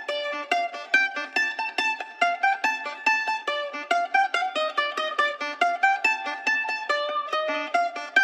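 Background music: a quick, bright melody of plucked string notes, several a second, with no bass underneath.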